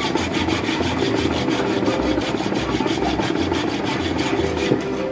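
Flat hand file scraping across the edge of a metal plate held in a bench vise, in steady repeated push strokes.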